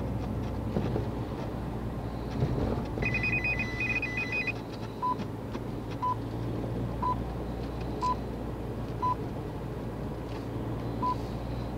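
RAI radio time signal (segnale orario) heard over a car radio. A short burst of warbling coded data tones comes first, then beeps once a second; one beep is skipped before the final pip that marks the hour. A steady low hum of the moving car runs underneath.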